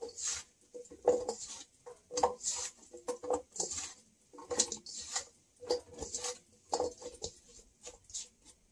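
Hands tossing and squishing cut raw potato fries coated in butter and seasonings in a stainless steel bowl, a wet rustling in repeated strokes about one or two a second, to coat them evenly.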